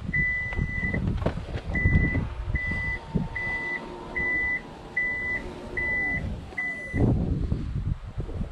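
Vehicle reversing alarm beeping eight times, a high beep roughly every 0.8 s, over a running engine and wind rumble on the microphone.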